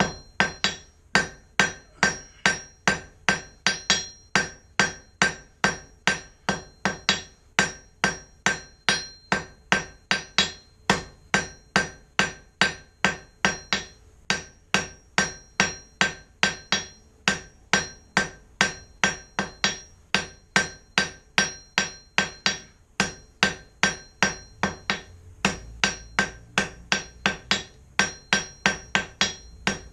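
Blacksmith's hand hammer striking 1/4-inch square steel bar on an anvil, drawing the bar out thinner. The blows come at a steady pace of about two to three a second, each with a bright metallic ring, broken by a few short pauses.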